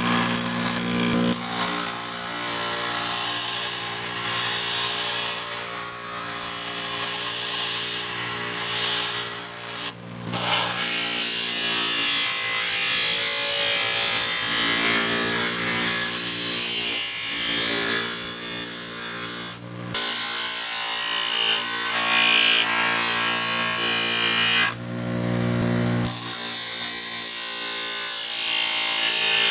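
Delta bench grinder running, with a coil-spring steel knife blade pressed against its spinning wheel: a steady motor hum under a harsh grinding hiss. The sound breaks off briefly a few times.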